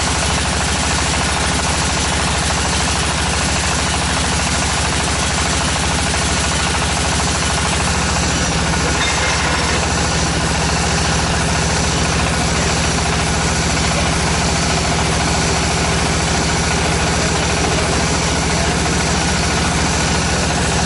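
Tractor engine of a DFT-450 tractor-mounted water well drilling rig running steadily with a fast, even knock. Its tone shifts slightly about eight seconds in.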